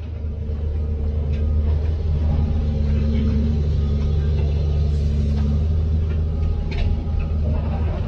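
Bulldozer's diesel engine running steadily with a deep, even drone.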